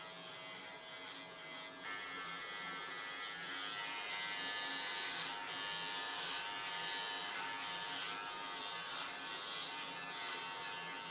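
Philips HC3505 corded electric hair clipper running with a steady buzz while trimming hair.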